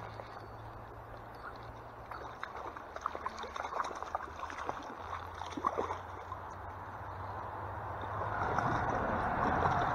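Hooked brown trout thrashing at the surface of a stream: a run of short, sharp splashes, with the churning water growing louder toward the end.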